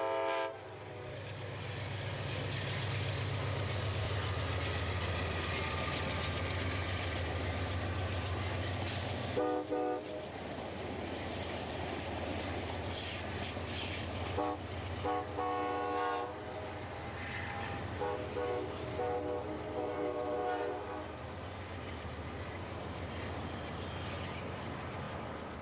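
Amtrak passenger train running, with a deep rumble for the first nine seconds or so. The locomotive horn sounds several blasts: a short one about ten seconds in, then longer ones around fifteen and nineteen seconds.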